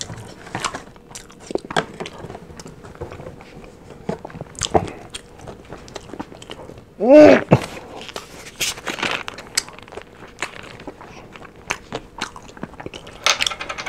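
Close-up crunching and chewing of crispy fried chicken: many short, sharp crunches and bites, with a brief vocal sound from the eater about seven seconds in.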